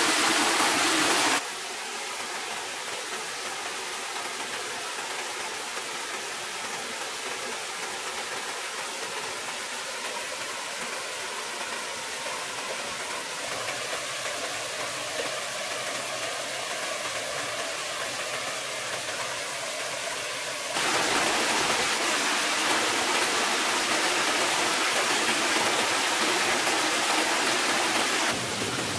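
Small forest stream running over rocks: a steady rush of water. It is louder and brighter briefly at the start and again for several seconds near the end, dropping abruptly to a softer rush in between.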